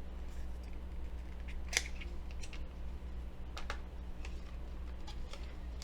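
Hands handling the Apple Watch's magnetic charging cable and its packaging: scattered light clicks and rustles, with a sharper click a little under two seconds in, over a steady low hum.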